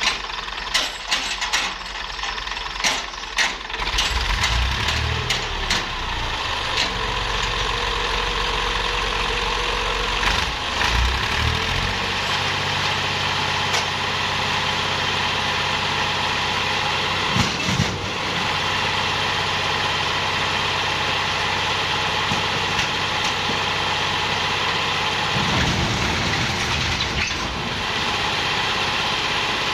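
Diesel farm tractor engine running, sped up and held steady for a long stretch while its hydraulic lift raises a trolley loaded with stones, then settling back near the end. A few sharp knocks of stones at the start.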